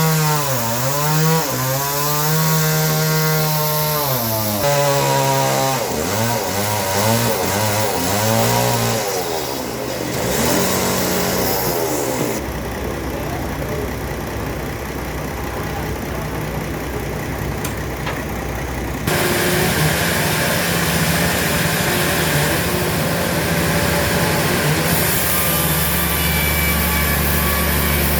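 Engine-driven logging and sawmill machinery in a string of abruptly cut clips: an engine revving up and down over and over for the first ten seconds or so, then steadier machine running.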